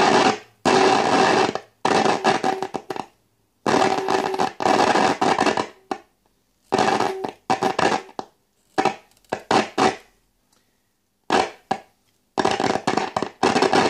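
Valve radio's loudspeaker giving loud static hiss with a steady tone beneath it, cutting in and out abruptly over and over as the tuning is worked. The set has a short that the repairer puts almost surely in a capacitor, and it keeps the station from coming through.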